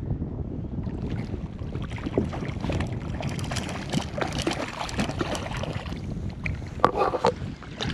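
A hooked trout splashing at the surface of the water, with splashes coming from about two seconds in and a louder burst near the end. Wind buffets the microphone throughout.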